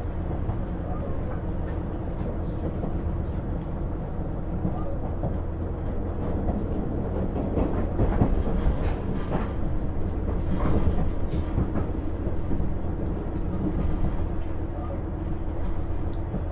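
KiHa 110 diesel railcar heard from on board while nearing a station stop: a steady low engine hum under wheel and rail rumble. The rail clatter gets louder for a few seconds in the middle.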